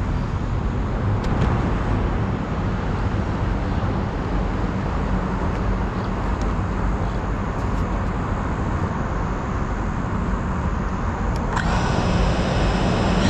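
Steady outdoor rumble of road traffic picked up on the drone camera's microphone. About a second and a half before the end, a steady high whine of several tones sets in as the FPV drone's motors spin up at idle.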